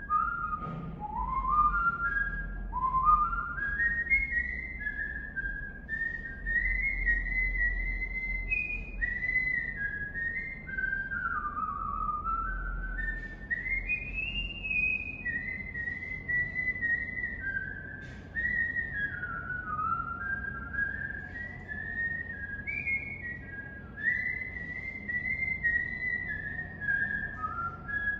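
A person whistling a slow, wandering solo melody whose notes slide up and down from one to the next, over a faint low rumble.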